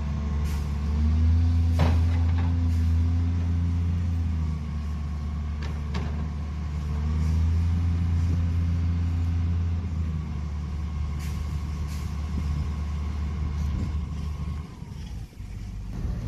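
Engine of a hydraulic boom machine with a tree grapple, working steadily and rising in level twice as the boom is worked, with a thin high whine over it. A few sharp cracks come through, and the engine drops away near the end.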